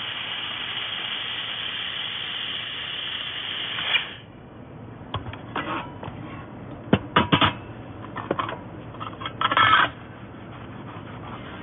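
Steady hiss from a 1.5 kW welder working 2.5 mm aluminium, cutting off suddenly about four seconds in, followed by scattered sharp clicks and knocks and a short rattle near the end.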